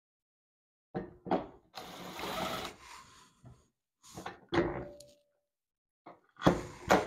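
Handling noises from fitting a golf cart's rear flip seat: a few sharp knocks and clicks and about a second of scraping as the bolts are started and the metal seat frame is shifted into place.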